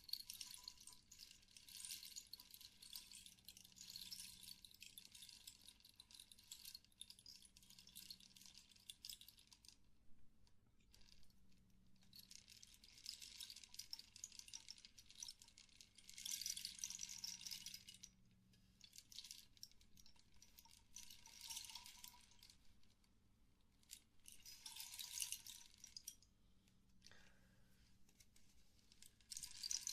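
Toy slime worked close to the microphone, giving quiet wet crackling and squishing in spells of a few seconds with short pauses between.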